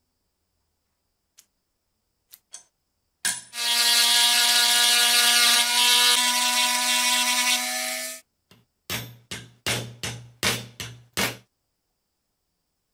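Handheld rotary tool running steadily for about five seconds as it works on a lighter's small knurled steel striker wheel, then a run of about six short bursts.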